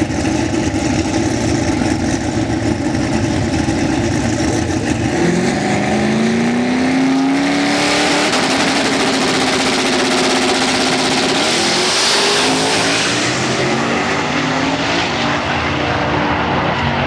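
Turbocharged Dodge Dart drag car's engine running steadily for about five seconds, then revving with its pitch climbing in steps as it accelerates. A loud rushing noise joins in from about seven seconds in.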